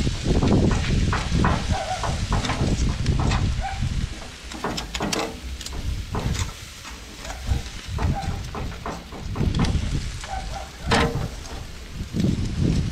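Metal tongs clacking against a steel-drum grill's grate and rim as pieces of jerk chicken are turned, many short sharp clicks through the whole stretch. Wind rumbles on the microphone throughout, and a few brief distant cries sound, the loudest about 11 seconds in.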